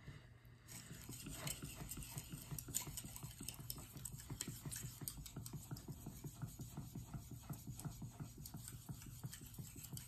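Steel santoku blade scraping on a Shapton Pro 5000-grit whetstone in quick back-and-forth sharpening strokes, starting about a second in. The strokes are faint, even and rapid.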